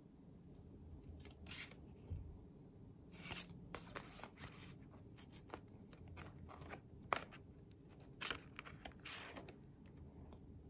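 Stiff paper greeting cards handled: soft rustles and slides of card against card, with a few light clicks and taps, as a card is turned over and opened.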